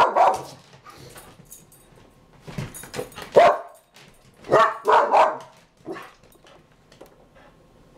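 A dog barking in short, sharp barks: one at the start, then a quiet gap, then a run of about five barks at uneven intervals. It is reactive barking, set off by the dishwasher being touched and opened.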